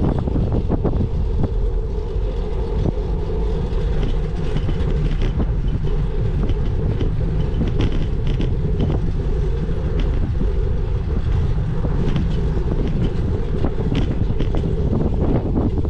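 Wind rushing over the microphone of a camera riding on a moving bicycle, with many small rattles and knocks from the bike going over the road.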